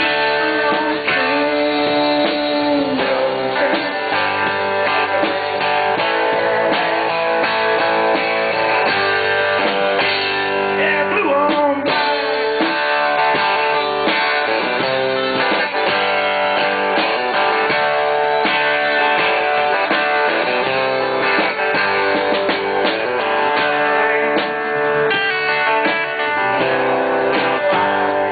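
Live blues-rock band playing an instrumental passage: electric guitars over drums and bass, with guitar notes bent up and down about ten seconds in.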